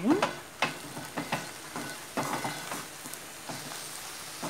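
Steel spoon stirring sautéed ponnaganti (dwarf copperleaf) greens in a metal pan, mixing in freshly added chilli powder: irregular clicks and scrapes of the spoon on the pan over a light sizzle of the frying leaves.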